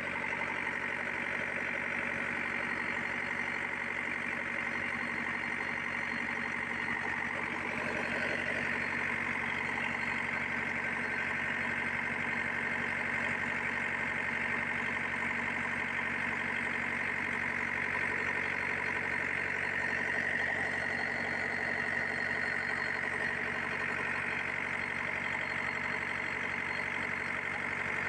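Komatsu PC50MR-2 mini excavator's diesel engine idling steadily with its hydraulic pump running, a constant hum with a high-pitched edge and no change in speed, on a machine whose hydraulic system is weak.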